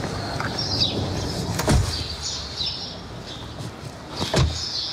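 Two car doors slammed shut, about two and a half seconds apart, with birds chirping in the background.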